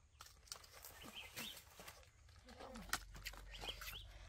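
Faint short animal calls, a few brief high chirps and a lower call, among scattered clicks and knocks.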